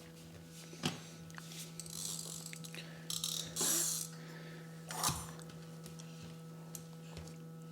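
A toy car being handled, with scattered mechanical clicks and a brief scraping rattle about three seconds in, over a steady low hum.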